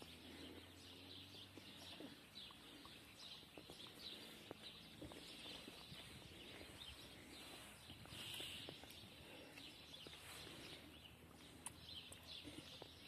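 Near silence with faint birds chirping now and then, a little louder about eight seconds in.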